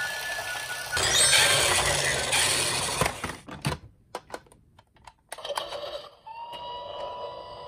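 A toy police car's electronic sound effect, loud and noisy, for about the first three seconds. Then hard plastic toy cars click and clatter as they are handled in a cardboard box. About six seconds in, a toy's electronic siren starts with a steady wail that slowly falls in pitch.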